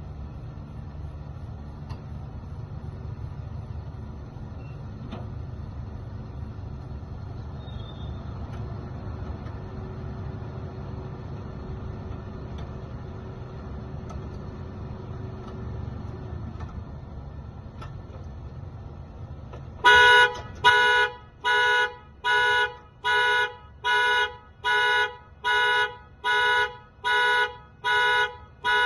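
2014 Toyota Camry's anti-theft alarm going off, sounding its horn in steady repeated honks about 1.4 times a second, set off by the door being opened without a key. Before the alarm starts, about two-thirds of the way in, there is only a low steady rumble.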